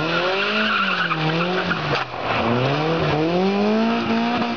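Rally car engine revving hard as the car slides through a gravel corner. The revs rise and fall, drop sharply about two seconds in, then climb steadily again, over the hiss of tyres sliding on gravel.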